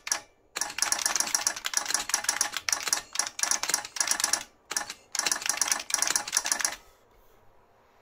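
New Model F F77 buckling-spring keyboard with its solenoid switched on: fast typing, a quick run of sharp key clicks with a brief pause around the middle, stopping about a second before the end.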